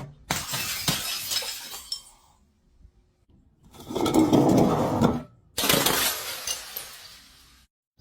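Glass bottles shattering three times in a row, each break a crash followed by about two seconds of clinking shards.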